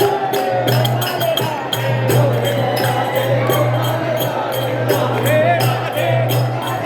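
Loud music with a fast, steady beat of high, sharp strokes over a deep steady hum, with voices singing or calling along.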